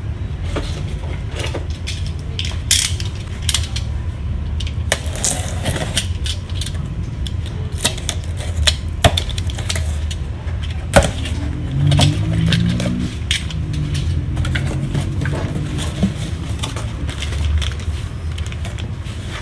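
Cardboard printer box being opened by hand: flaps pulled open and plastic-wrapped packing handled, giving scattered clicks, scrapes and crinkles over a steady low background hum.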